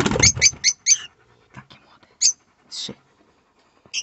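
A hand rustles in the straw of a rosy-faced lovebird nest box near the start. Over the rustling come about four short high-pitched lovebird chirps in the first second, then two more chirps a little past two and near three seconds in.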